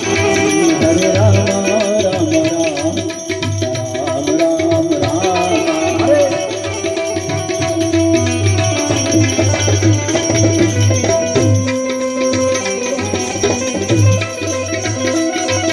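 Indian devotional dhun music, instrumental: a steady hand-drum beat of tabla type under a wavering melody line, with no words sung.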